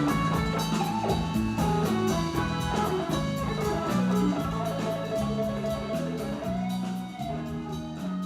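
Band music: guitar lines over bass notes and a steady drum beat, fading out near the end.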